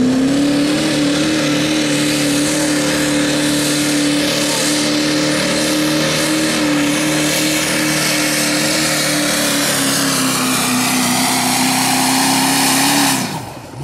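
Modified Duramax V8 turbodiesel pickup running flat out as it pulls a weight-transfer sled. The engine climbs to high revs in the first moments, holds there steadily, and drops away sharply near the end.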